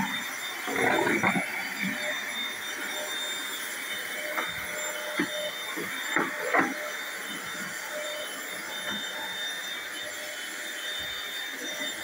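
Corded stick vacuum running steadily with a high-pitched motor whine, with a few knocks and bumps as its head is pushed over the hardwood floor.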